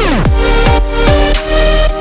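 Electronic dance music: a steady kick-drum beat under held synth chords, with a falling sweep at the start.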